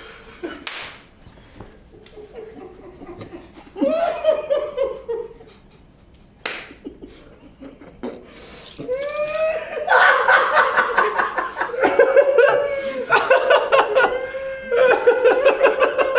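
Loud, hearty laughter breaking out about nine seconds in and running on in quick pulsing bursts, with a single sharp smack a few seconds before it.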